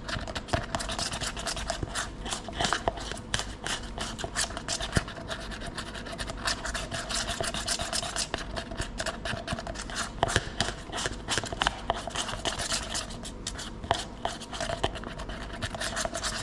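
A spatula stirring a viscous, bubble-filled PDMS silicone mix (Sylgard 184 base with curing agent) vigorously in a plastic cup, a quick irregular run of scrapes and clicks as it scrapes the cup's sides and corners.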